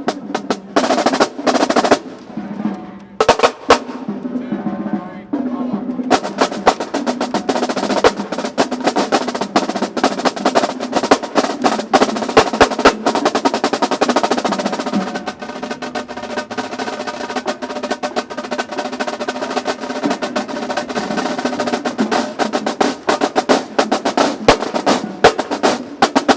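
Marching drumline playing together: a few separate hits for the first few seconds, then about six seconds in a fast, dense run of drum strokes and rolls that keeps going.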